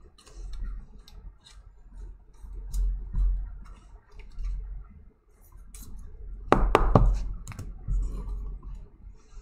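Trading cards being handled and sorted on a table: light clicks and rustles of card stock with soft low thuds, and a quick cluster of three or four sharp clicks about six and a half seconds in.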